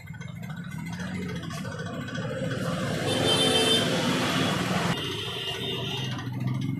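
A motor vehicle passing by. It grows louder to a peak about halfway through, then fades.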